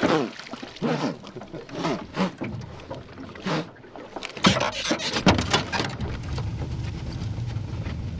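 Splashing and knocks as a large catfish is hauled over the side of a small metal boat and handled on its floor, mixed with several short falling calls. A steady low motor hum sets in about six seconds in.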